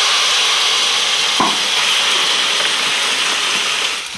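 Food sizzling loudly in a hot frying pan as it is tipped in from a bag, easing off a little near the end. A single light knock about a second and a half in.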